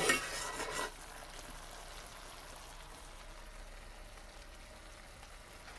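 A metal spoon scrapes and clinks in a skillet for about the first second. Then a faint, steady sizzle from the pan of fried cabbage and andouille sausage.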